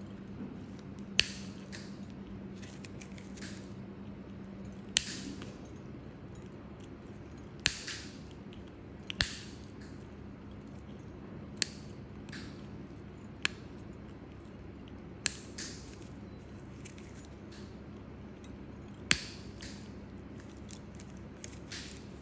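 Steel toenail nippers clipping a thick, crumbling toenail: about eight sharp snips a second or more apart at an uneven pace, with fainter clicks of the jaws in between.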